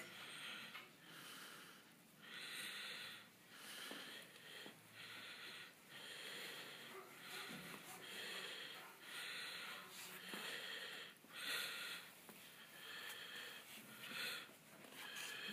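A person breathing audibly, a short breath about once a second.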